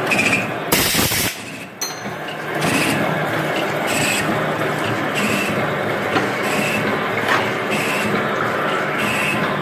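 An automatic thread-tapping machine running through its cycle: steady machine noise with short high ticks recurring about once a second, after a brief loud hiss about a second in.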